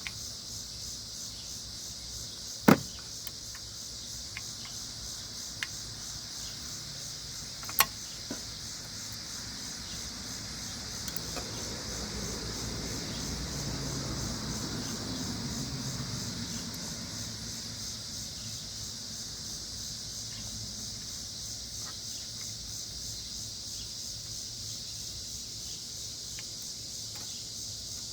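Steady high chirring of crickets throughout, with two sharp clicks a few seconds apart early on. In the middle a vehicle passes, its low rumble swelling and then fading away.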